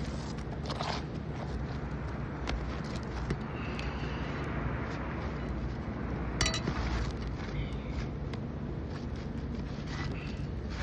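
Steady low mechanical hum with scattered clicks and scrapes, the sharpest about six and a half seconds in.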